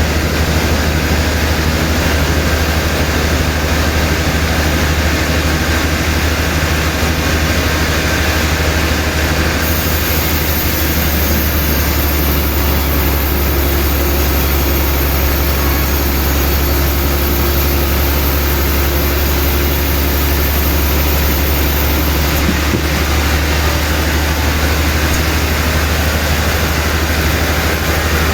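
Sawmill machinery running steadily, with a heavy low hum under a continuous mechanical noise.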